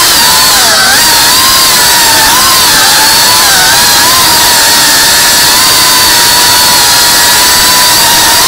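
Tiny FPV whoop drone's motors and propellers whining loudly, the pitch dipping and rising with throttle changes in the first few seconds, then holding fairly steady.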